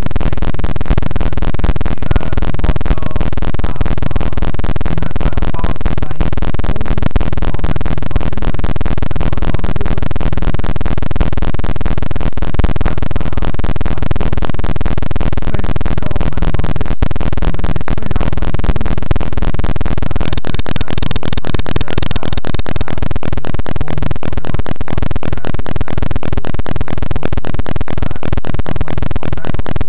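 Loud, continuous crackling distortion from a garbled audio feed, in which no words can be made out; its texture shifts about twenty seconds in.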